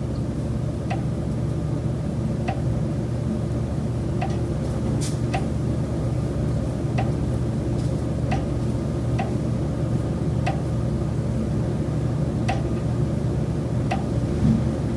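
Repeated light knocking coming through the building's common elements, a sharp tick roughly once a second at uneven intervals, over a steady low hum. It is the ongoing noise that the tenant holds is not a normal high-rise building noise.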